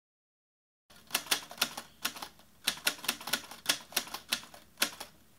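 Typewriter keys clacking in an irregular run of quick strikes, several a second, starting about a second in after dead silence.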